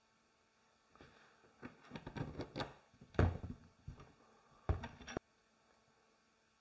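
A run of irregular knocks and rustling, starting about a second in; the loudest knock comes a little past three seconds, and a last burst near the end stops abruptly.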